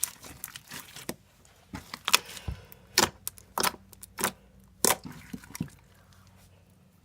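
Handling noise: an irregular run of sharp crackles and clicks that stops about six seconds in.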